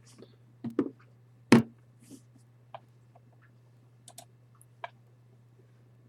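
Scattered, irregular clicks and knocks from handling things at a desk, the loudest a single sharp knock about a second and a half in, over a steady low electrical hum.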